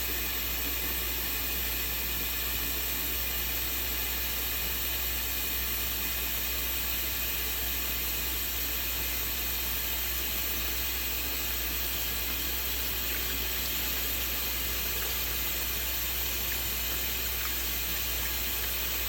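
Kitchen tap running steadily, a constant rush of water filling a pot.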